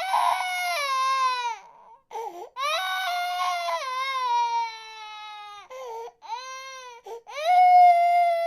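Infant crying in a series of long wails, each falling in pitch, broken by short gasping breaths.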